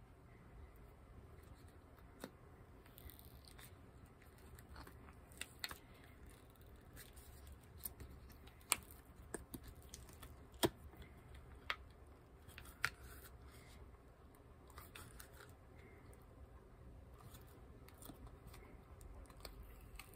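Silicone mold being flexed and peeled off cured epoxy resin pieces: faint rubbing and handling noise with scattered sharp clicks and ticks.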